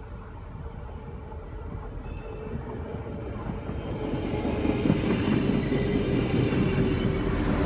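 Arriva Stadler GTW multiple unit approaching and passing close along the platform. It grows steadily louder over the first five seconds, with a steady hum from about four seconds in.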